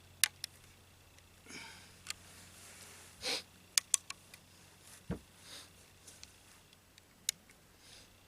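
Quiet breathing and sniffing close to the microphone, with a few sharp metallic clicks and one low thump, from small handling noises with no shot fired.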